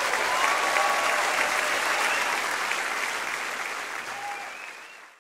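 Crowd applauding and cheering, with a few short whistles or shouts over the clapping. The applause fades out over the last second or two.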